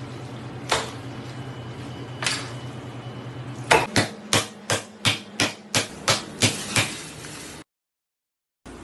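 Raw octopus being beaten to tenderize it: two heavy slaps onto a worktable, then a quick run of about nine blows at roughly three a second. A low steady hum runs under the first few seconds.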